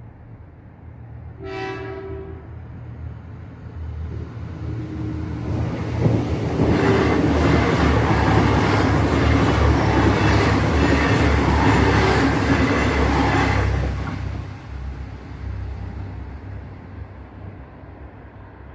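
Irish Rail 29000 Class diesel multiple unit sounds one short horn blast about two seconds in, then approaches and passes at speed through a level crossing. Its engines and wheels on the rails are loud for about eight seconds, then fade away.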